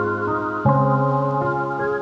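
Calm new-age background music: sustained keyboard chords, with a new chord coming in roughly every half second to a second.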